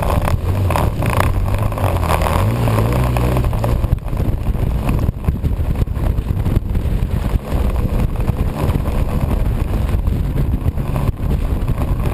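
A vehicle engine running steadily under way, louder for the first three seconds or so, over a rush of wind noise on the microphone.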